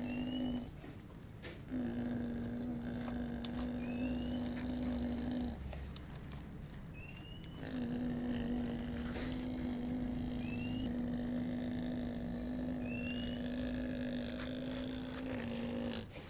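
Radio-controlled construction model's motor humming at a steady pitch in runs of a few seconds, stopping briefly twice and starting again. Faint short high chirps recur every couple of seconds.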